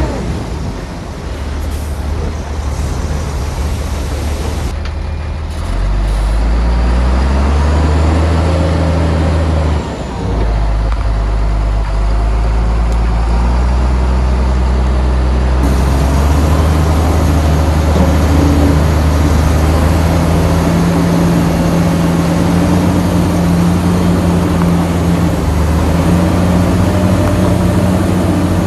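Bulldozer's heavy diesel engine working under load. It runs lower for the first few seconds, then climbs and holds loud and steady, with a brief dip about ten seconds in.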